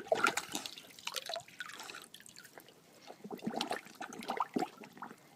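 A Rottweiler lapping and splashing at swimming-pool water with its mouth, a run of uneven wet slurps and splashes.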